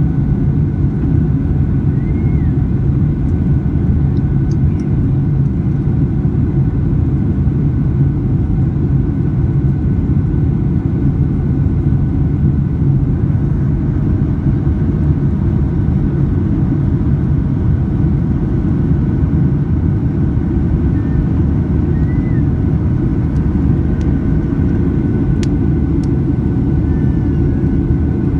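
Boeing 737-800 cabin noise in the climb after takeoff: its CFM56-7B turbofan engines and the airflow make a steady deep roar inside the cabin, with a few faint steady whining tones above it.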